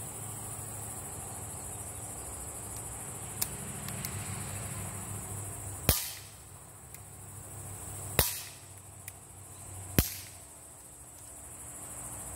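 Schofield-style CO2 BB revolver fired three times, each a sharp crack, about two seconds apart. Crickets and insects keep up a steady high buzz behind the shots.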